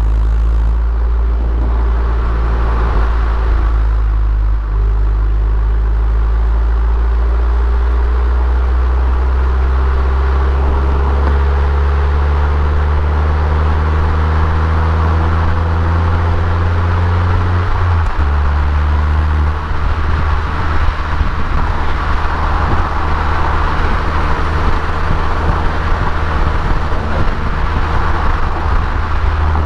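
Abarth Punto Evo with the EsseEsse kit, its stock 1.4-litre turbocharged four-cylinder running under way. The engine note climbs slowly for about ten seconds, drops abruptly about eighteen seconds in, then carries on lower and rougher.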